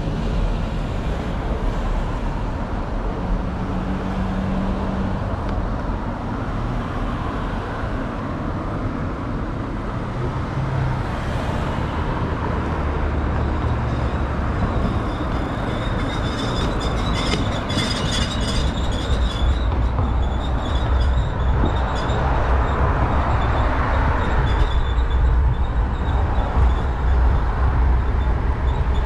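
Continuous wind on the microphone and road rumble from a moving bicycle in city traffic, with cars passing. The low rumble grows stronger in the second half, and there is a brief high-pitched squeal about halfway through.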